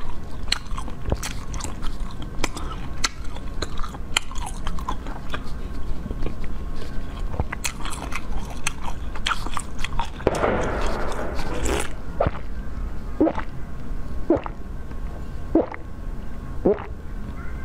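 Chewing and biting on a hard frozen treat, with many sharp crunchy clicks and a denser stretch of crunching about ten seconds in. After that come short separate mouth sounds roughly once a second as she bites into it again.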